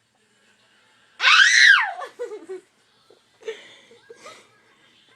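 A person's high-pitched screech that rises and falls in one arching cry about a second in, trailing off into lower, softer vocal sounds, with a couple of faint vocal noises near the end.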